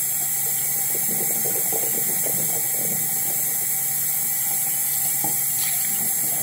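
Bathroom sink tap running in a steady hiss, with small clicks and knocks of handling over it in the first few seconds.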